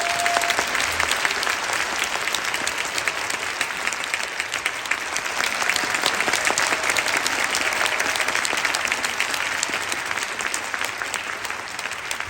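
Audience applauding: dense, steady clapping that starts at once and eases off slightly toward the end.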